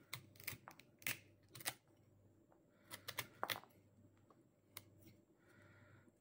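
Kitchen knife cutting small rootlets off a celeriac root. It makes a series of sharp, crisp snicks and scrapes in quick clusters, with a pause of about a second between them.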